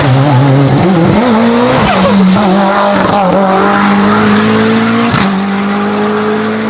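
Hill climb race car engine at full throttle, accelerating hard with quick gear changes: the pitch jumps about a second and two seconds in, then climbs slowly, with another change a little after five seconds.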